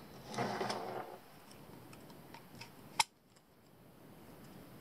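Black plastic waste-pipe fittings being picked up off a table and handled: a brief scraping rustle near the start, a few light clicks, then one sharp click about three seconds in.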